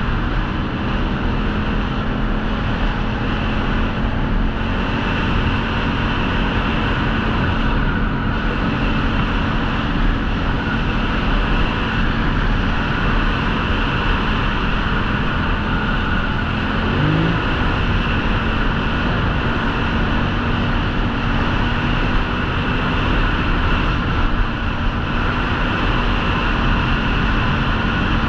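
ATV engine running at a steady pace under a heavy wash of rumble and noise, with a brief rev about two-thirds of the way through.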